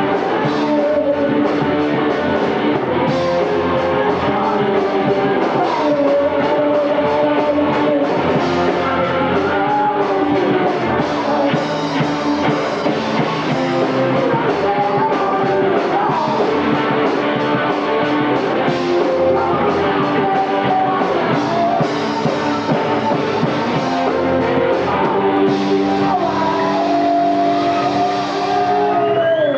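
Live rock band playing, with electric guitar and drum kit keeping a steady beat. Near the end a long held note bends downward.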